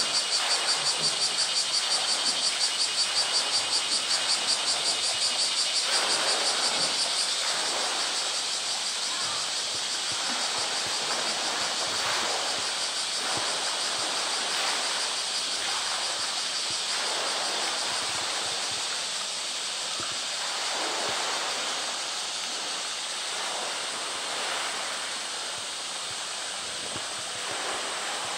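Water sloshing and splashing as a polar bear wrestles a floating plastic drum in its pool, with a pulsing chorus of cicadas buzzing over it for the first several seconds and then fading.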